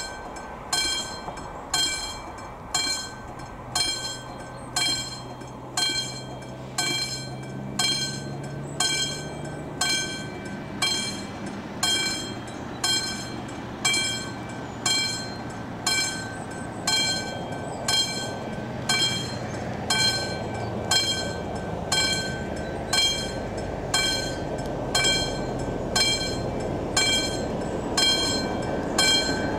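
Mechanical bell of a Czech AŽD 97 level-crossing signal ringing while the red lights flash, about one ringing stroke a second: the crossing is warning of an approaching train.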